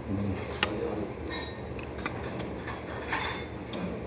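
Utensils clicking and clinking against dishes during a meal: several light, scattered clicks.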